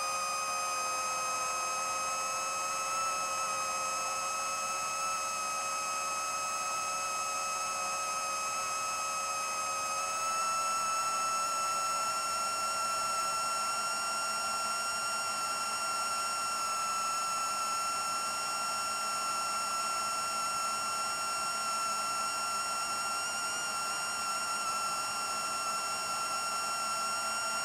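Racerstar 2514 1498KV brushless motors spinning HQProp 7040 propellers on an FPV quadcopter in steady flight: a steady high whine over a rushing hiss. The pitch steps up slightly about ten seconds in.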